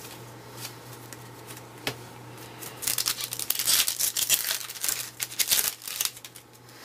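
Foil baseball card pack wrapper crinkling and tearing as it is opened, a dense burst of crackly rustling that starts about three seconds in and lasts about three seconds.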